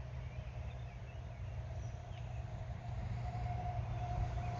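Quiet outdoor ambience: a low steady rumble, a few faint bird chirps, and a faint steady high tone that comes in about three seconds in.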